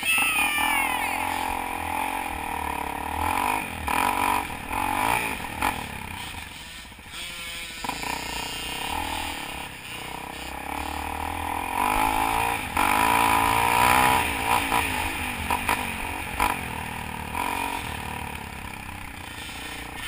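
Onboard dirt bike engine revving hard as it pulls away and accelerates along a trail. Its pitch rises at the start and keeps rising and falling with the throttle.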